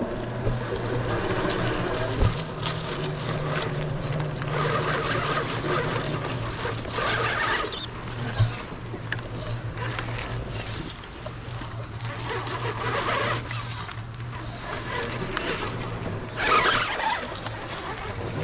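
A 1/10-scale RC rock crawler's electric motor and drivetrain running, with a steady hum and several short bursts of throttle as it works over a wet trail.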